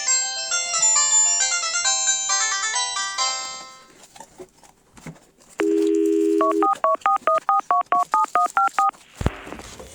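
Electronic phone tones from a Panasonic KX-TU550 flip phone: a short bright melody, a few soft clicks, a steady beep about a second long, then a fast two-tone warbling ring. Near the end a low thump and electronic music begin.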